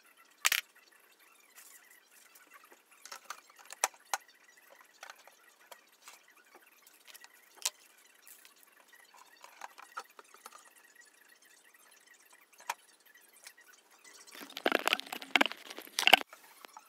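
Scattered light clicks and taps as flat-pack cabinet parts and plastic packaging are handled, then a few seconds of louder rustling and knocking near the end.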